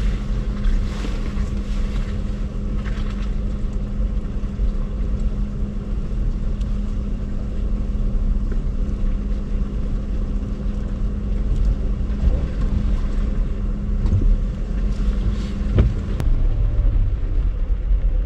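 Jeep engine running steadily while driving a rough 4x4 trail, with a low rumble and scattered knocks and rattles from the bumpy ground; near the end the engine note drops lower.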